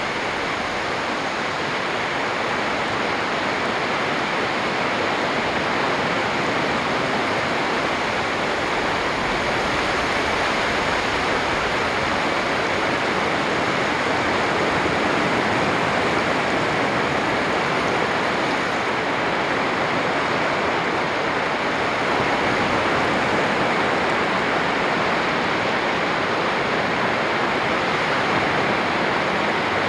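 Sea surf on a long sandy beach: a steady rushing wash of breaking waves, without distinct separate breakers.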